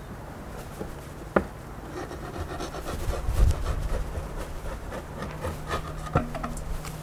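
Wooden bread peel sliding and scraping against the brick mouth and floor of a wood-fired oven as a round loaf of dough is slid in, with a sharp knock of wood on brick about a second in and another near the end.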